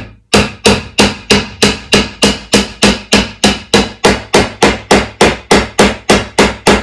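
Hammer driving a nail through the wooden roof boards of a birdhouse into a pre-drilled hole, striking in a steady rhythm of about three blows a second.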